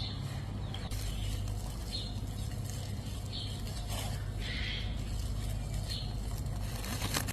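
Birds chirping now and then in short calls over a steady low hum, with a single sharp click near the end.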